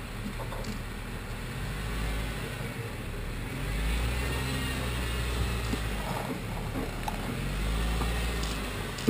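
Jeep Wrangler JK's V6 engine crawling at low speed up a rock ledge, the revs swelling in several surges as the driver feeds throttle to climb.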